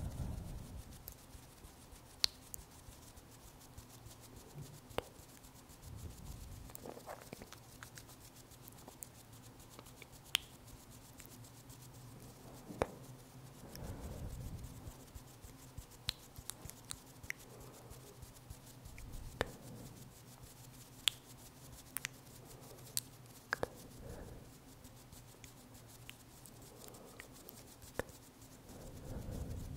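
Quiet close-up hand sounds: irregular small sharp clicks of fingers, and a few soft rubbing swells as the hands move near the microphone, over a faint steady hum.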